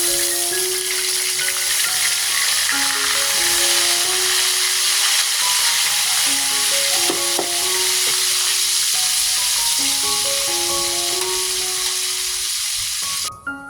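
Food frying in hot oil in a pan, a loud steady sizzle that cuts off suddenly near the end. Background music with plucked melodic notes plays underneath.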